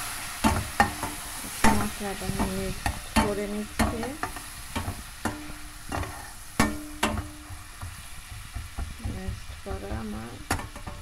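A spatula stirring and scraping onion-and-spice masala in a stainless steel karahi, with irregular sharp clicks as it knocks against the pan, over the masala's steady sizzle.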